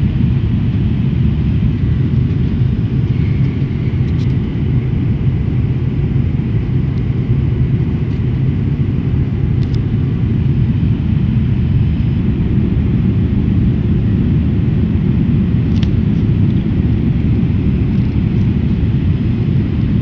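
Airliner cabin noise in flight: a steady low rumble of engines and airflow. A few faint sharp ticks from the cabin wall are heard over it, spaced several seconds apart; the uploader found such cabin wall noises during turbulence scary.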